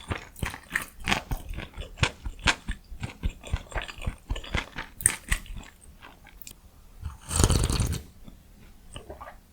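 Close-miked eating: rapid crunchy chewing and biting of food for several seconds, then a single louder noisy rush lasting under a second near the end, followed by a few quieter mouth clicks.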